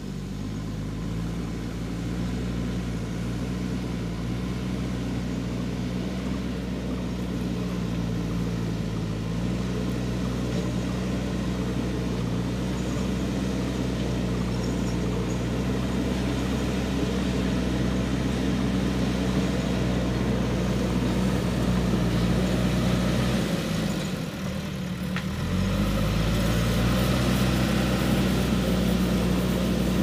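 JCB 3DX backhoe loader's diesel engine running steadily as the machine pushes soil with its front bucket, slowly growing louder. About 24 seconds in the engine note drops away for a second or two, then picks back up.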